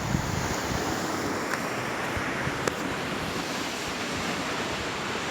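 Sea waves washing and splashing against shoreline rocks, a steady surf noise, with wind buffeting the microphone.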